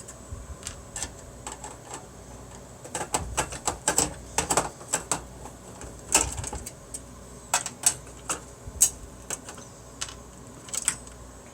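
Irregular clicks and clacks of small metal and plastic computer parts being handled and unscrewed while a desktop PC case is stripped, busiest in the middle stretch.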